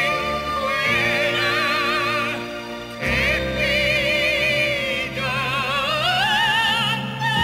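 A man and a woman singing a mock-operatic love duet in Italian with heavy vibrato over an orchestra, the voices climbing near the end to a long held high note.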